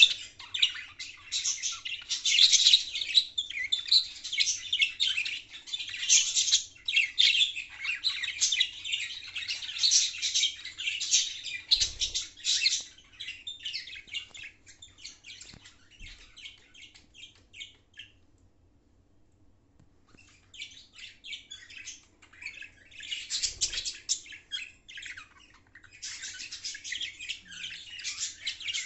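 Pet budgerigars chattering in fast, high warbling chirps with the odd squawk, falling quiet for about two seconds past the middle before starting up again.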